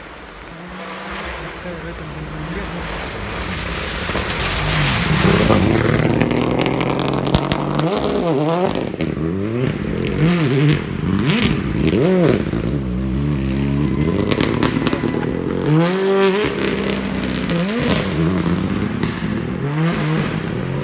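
A rally car's engine approaching, growing louder over the first five seconds, then revving up and falling away again and again through gear changes, with sharp cracks and pops scattered through it.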